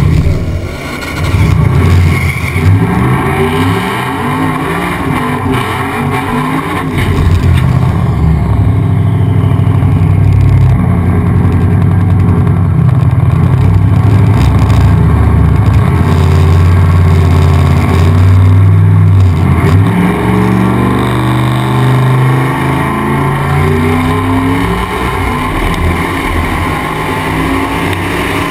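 Turbocharged race pickup's engine, close up, revving up and down repeatedly, then held at high revs for about ten seconds during a tyre-smoking burnout, then revving in rising pulls again.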